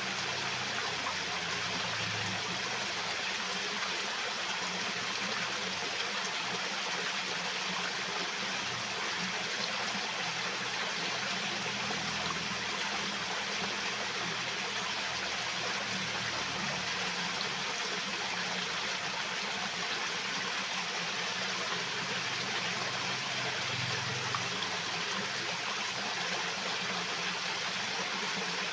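Stream of water flowing and splashing steadily, a constant rushing hiss with no breaks.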